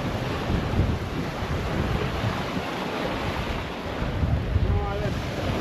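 Surf washing on the beach, with wind buffeting the microphone in a low, steady rumble. A faint voice calls out briefly near the end.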